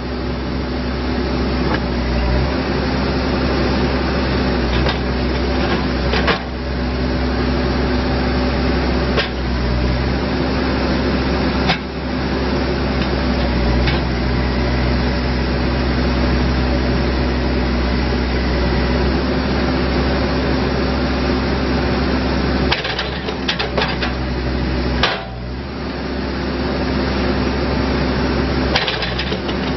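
Case 580N backhoe loader's diesel engine running steadily, with sharp knocks every few seconds and a quick cluster of them about three-quarters of the way through.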